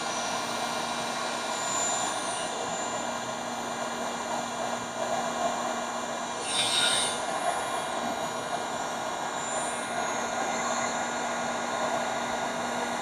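Electric heat gun running steadily, its fan blowing hot air with a constant rushing hum, heating heat-shrink solder splices before the solder has begun to melt. A brief brighter hiss comes about halfway through.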